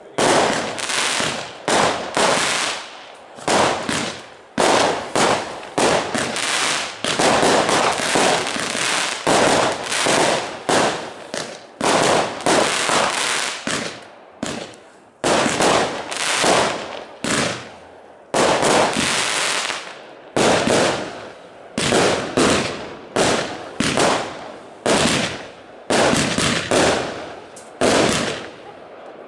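Aerial firework shells bursting in quick succession during a fireworks display: sharp bangs about one every second or so, some in quick clusters, each followed by a trailing decay.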